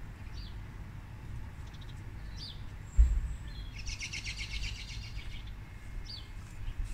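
Small birds calling: short high chirps scattered through, and a rapid twittering song from about four to five and a half seconds in. Underneath runs a low steady rumble, with one dull thump about three seconds in.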